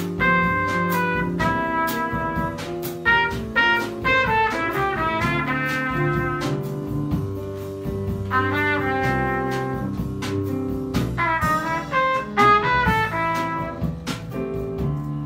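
Live jazz: a trumpet plays the melody over double bass and a drum kit, with regular cymbal and drum hits.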